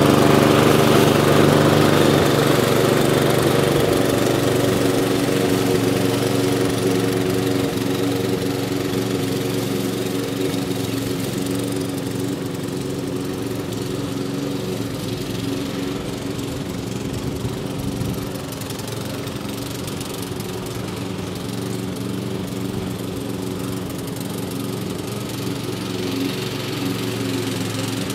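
Hayter Spirit 41 petrol lawnmower engine running steadily while cutting grass, with no revving up and down now that a new carburettor seal ring has been fitted. It grows fainter as the mower is pushed away, then holds level and rises slightly near the end as it turns back.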